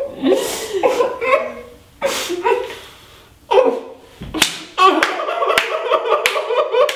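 Wordless vocal sounds, in broken sobbing bursts in the first half, then a sustained hum muffled behind tape over the mouth. Sharp hand claps, spaced well under a second apart, join it about two-thirds of the way in.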